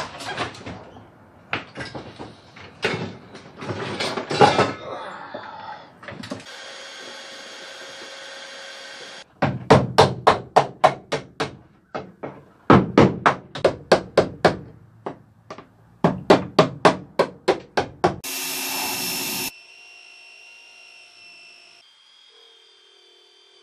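Hammer and chisel striking the sheet-metal floor pan of a stripped car body in three quick runs of blows, about four a second. A steady machine noise runs for a few seconds before them. After them a power tool runs loud for about a second, then a fainter whine follows.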